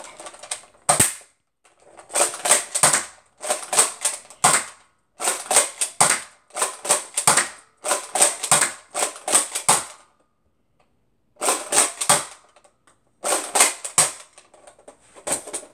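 Air Warriors Champion toy foam-dart blaster being worked and fired again and again. Its plastic mechanism gives about ten quick runs of sharp clicks and snaps, each lasting under a second, with a longer pause about two-thirds of the way through.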